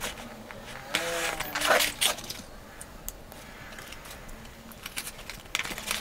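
A cardboard shipping box being handled and cut open with a craft knife: scraping and rustling of cardboard and packing tape. It is loudest about a second in and again near the end.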